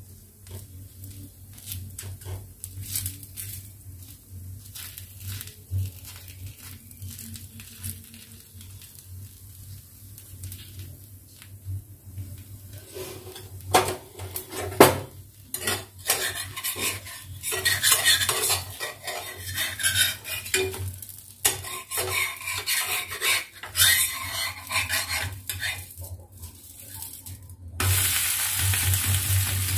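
Metal utensils clinking and scraping on an iron tawa, sparse at first and busier about halfway through, as a bottle gourd batter pancake is oiled and worked with a flat spatula. Near the end the pancake is turned and a steady sizzle of frying sets in.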